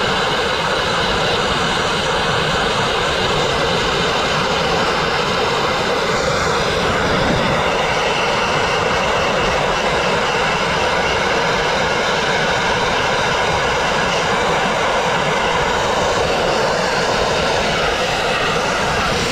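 Dustless blasting nozzle firing a steady, unbroken, loud stream of water and crushed glass against a painted brick wall, stripping cement-backed masonry paint down to the brick.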